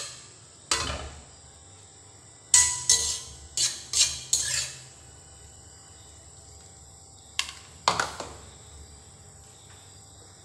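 Metal spatula knocking and scraping against a metal wok as cooked fish is scooped out of it: a series of sharp, briefly ringing clangs and scrapes, about nine in all, bunched a few seconds in and with two more later on.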